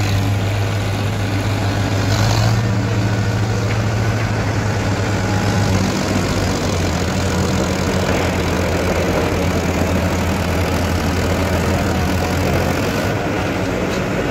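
Powertrac Euro 50 tractor's three-cylinder diesel engine running hard and steady under heavy load as it hauls a trolley loaded with sugarcane.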